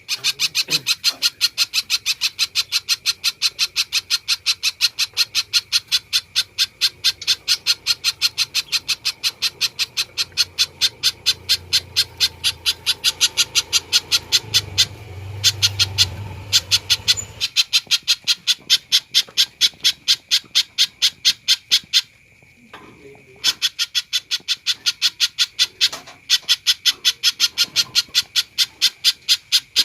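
Spiderhunter (pijantung) calling persistently: a long run of sharp, high, evenly repeated notes at about four to five a second, broken by a couple of short pauses.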